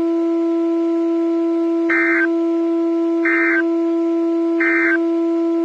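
Emergency Alert System SAME data bursts: three short, identical warbling data bursts about 1.4 seconds apart, the End of Message code that closes the alert. Under them a steady low-pitched hum tone runs throughout.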